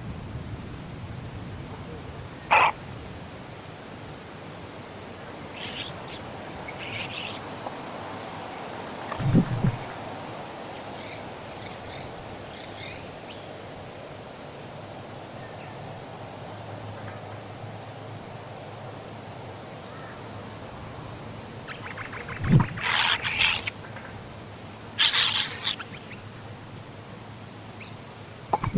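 Birds calling outdoors: a few loud, harsh calls, clustered mostly after the middle, over a steady high drone and a regular series of short high chirps.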